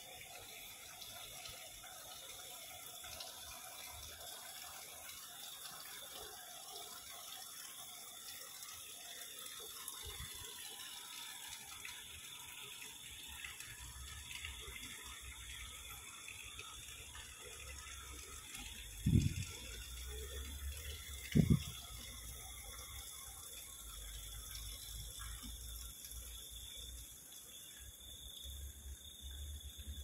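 Steady hiss of water running in the canal beside the path, with a faint steady high tone over it. Two brief low thumps, about two seconds apart, a little past the middle.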